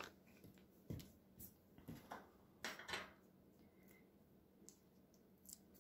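Near silence broken by a few faint taps and soft rustles of cardstock and paper being handled on a craft mat.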